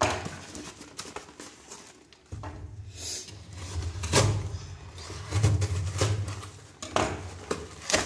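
A plastic courier mailer rustling and crinkling as it is cut open with a knife and pulled apart, then a cardboard box being handled and unfolded, with several sharp knocks against a wooden tabletop.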